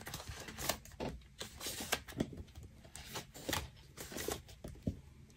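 Faint, irregular rustling and light clicks of photos and papers being handled and shuffled through.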